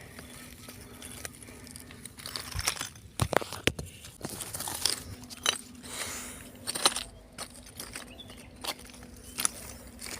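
Irregular crunching and rustling close to the microphone, from someone stepping about and handling things on leafy ground, with scattered sharp clicks and scrapes from about two and a half seconds in.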